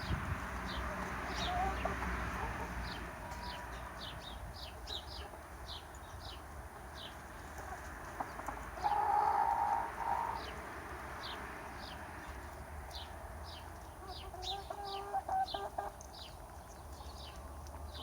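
Chickens clucking and calling, with one louder drawn-out call about nine seconds in and a quick run of clucks near the end. Many short high chirps continue throughout.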